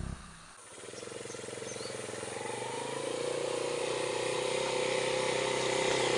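Small motor scooter's engine running as it approaches along a dirt track, growing steadily louder.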